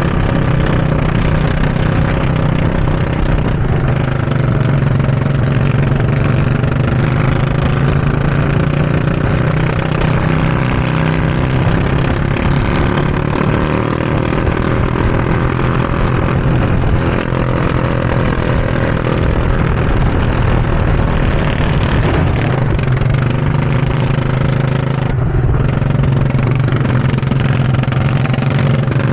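Go-kart engine running hard, heard from on board the kart. Its pitch falls and rises with the throttle through the corners.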